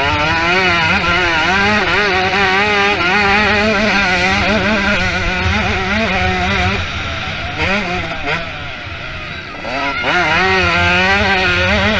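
Motocross bike engine revving hard, its pitch rising and falling quickly with the throttle; it eases off about two-thirds of the way through, then revs back up.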